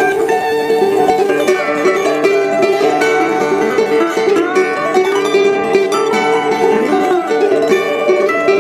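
Background music with plucked string instruments playing a quick, busy melody.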